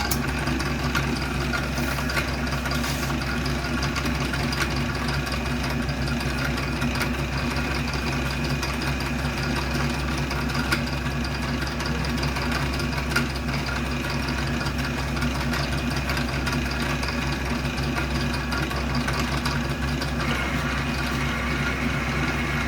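Old South Bend metal lathe running steadily under power while it drills a center hole, its motor and gear train giving an even mechanical hum; a higher whine joins near the end.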